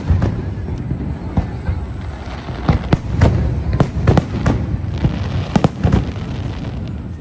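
Fireworks going off: a string of sharp bangs at irregular intervals over a continuous low rumble, thickest in the middle of the stretch and again shortly before the end.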